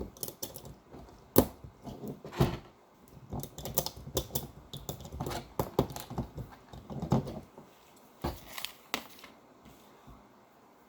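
Lego bricks being handled and pressed together: scattered small clicks and taps, busiest in the middle and thinning out near the end.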